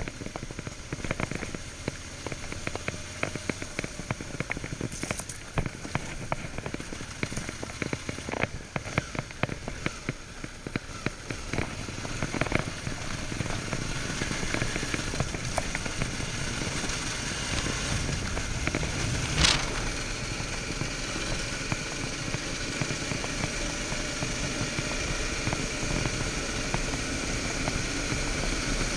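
Suzuki V-Strom 650 adventure motorcycle riding a gravel trail, heard through a GoPro. Dense crackling and clicking from the tyres on the track fills the first half, then the engine and riding noise settle into a steadier sound, with one sharp knock about twenty seconds in.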